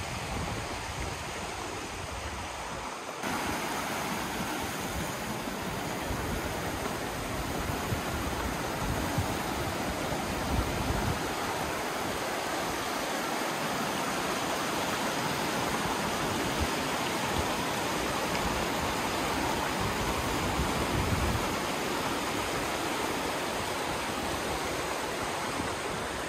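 Rushing mountain creek, a steady loud hiss of water running over rocks, fuller from about three seconds in.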